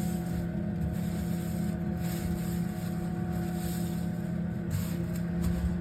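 Refrigerator being slid out from the wall, scraping and rubbing along the floor in uneven stretches, over a steady low hum.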